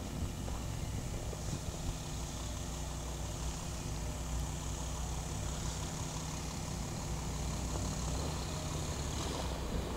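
A motor engine idling: a steady low hum that keeps an even level throughout.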